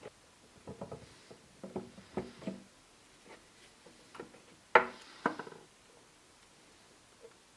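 Hands handling perfume packaging and bottle: a scattering of light taps, knocks and rubs, with one sharper knock about five seconds in.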